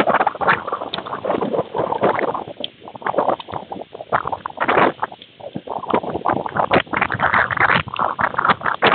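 Heavy rain and hail pelting the nest webcam and its microphone in gusty wind: a dense, irregular patter of hits that swells and eases, dropping off for a few seconds mid-way before building again.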